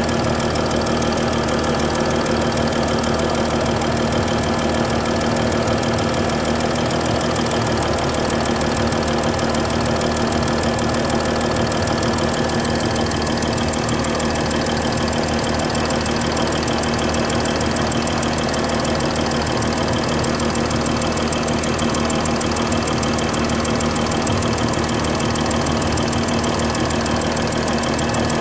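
Mercedes-Benz S320 engine idling steadily with a fast, even ticking, the sign of a leaking injector nozzle gasket.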